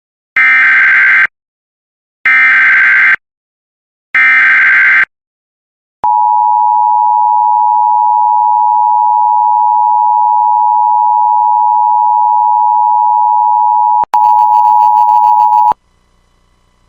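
Emergency Alert System alert signal for a Practice/Demo Warning. Three loud, screechy SAME header data bursts of about a second each are followed by a long steady attention tone lasting about eight seconds. Near the end the tone is briefly joined by a harsher, buzzing burst, then it cuts off.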